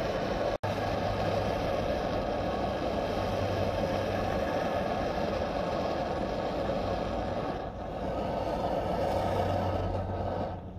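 Tomshoo multifuel stove burning 95% alcohol through its spirit jet, giving a steady roar from the pressurised burner.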